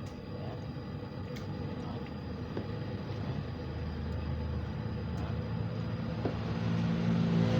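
Steady low machine-like rumble and hum, growing slowly louder toward the end, with a few faint light clicks.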